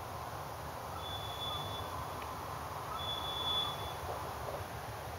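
Steady outdoor background noise with a low rumble, and two faint, thin high tones about two seconds apart.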